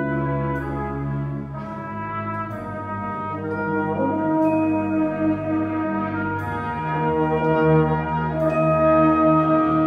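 Brass band of cornets, euphoniums and tubas playing held chords, with fresh accented attacks every second or two, swelling louder near the end.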